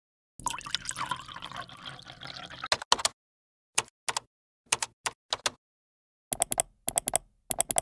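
Water running from a lever-operated plastic tap on a large bottled-water jug into a glass for about two and a half seconds, followed by a series of short sharp plastic clicks and knocks in small clusters.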